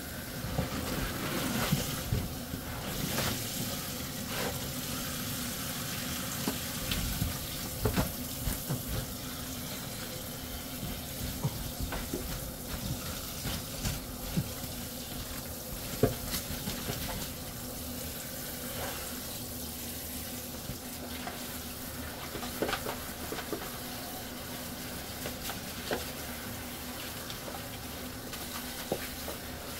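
Kitchen tap running and splashing into a stainless-steel sink as a mesh net of fish is rinsed and emptied, with irregular knocks and thumps of the wet fish and net against the steel.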